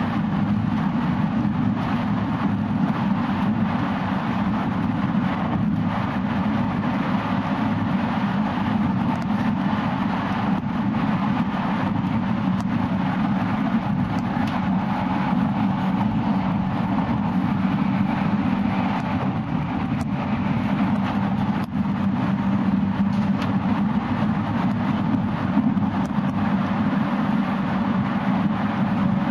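Running sound inside a JR West 221 series electric train at speed: a steady low running noise of wheels on rail, with faint steady tones and a few light clicks.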